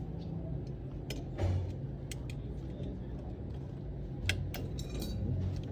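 A few sharp clicks of the start relay and overload being pulled off a refrigerator compressor's terminal pins, over a steady low hum.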